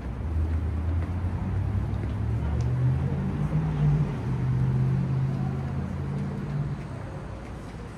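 Street traffic with a heavy vehicle's engine. Its low drone climbs in pitch a couple of seconds in, as when pulling away, holds, then eases off and fades near the end.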